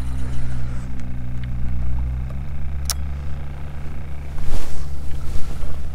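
A steady low mechanical hum, a little weaker from about two seconds in, with a sharp click about three seconds in.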